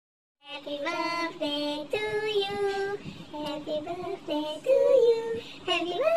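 A song with a high-pitched singing voice, starting after a brief silence about half a second in.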